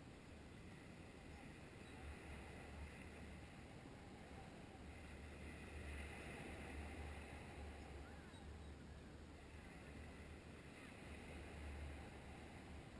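Faint wind rumbling on the microphone with a soft wash of distant surf, swelling and easing every few seconds.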